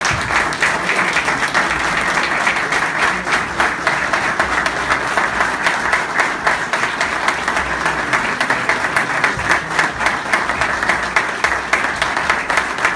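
A roomful of people applauding, many hands clapping steadily without a break.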